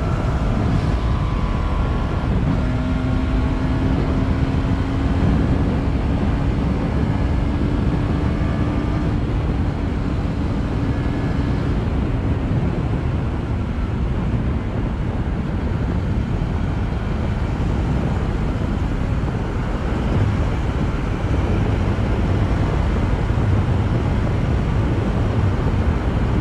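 Riding noise from a KTM Duke 250 single-cylinder motorcycle at steady road speed: the engine running under heavy wind rush on the microphone.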